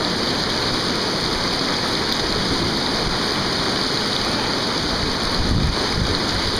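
Whitewater rapid rushing steadily, a loud continuous roar of churning river water.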